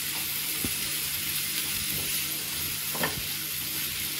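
Chopped onions and tomatoes sizzling in hot oil in a nonstick frying pan as a wooden spatula stirs them, with two light knocks of the spatula against the pan.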